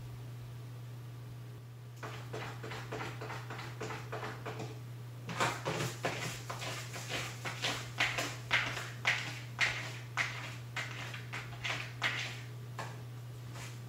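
Persian cat scratching and digging in cat litter inside a covered plastic Booda Dome litter box: repeated scrapes, about two a second, that grow louder from about five seconds in.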